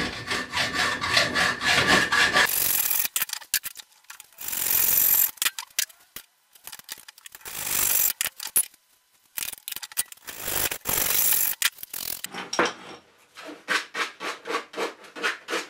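Hand hacksaw cutting through a metal tripod bar held in a bench vice: quick, rhythmic rasping strokes in several stretches, broken by short pauses.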